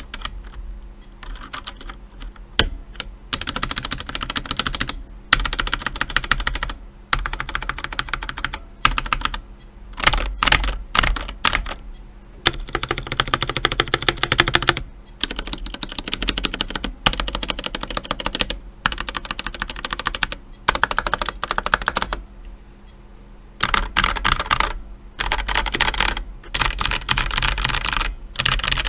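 Fast typing on a DEXP Tanto RGB mechanical keyboard with Outemu Red linear switches and lubed stabilizers: dense runs of key clacks broken by short pauses of a second or so.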